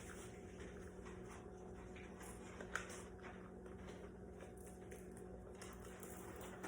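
Faint handling noises from ingredients being added to a mixing bowl, with one short sharp click about three seconds in, over a steady low hum.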